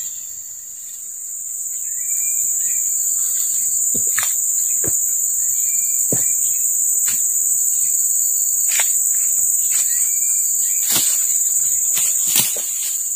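Loud, steady, high-pitched drone of forest insects, swelling about two seconds in, with a short chirp repeating about every four seconds. Scattered sharp clicks and snaps of dry leaves and twigs break in now and then.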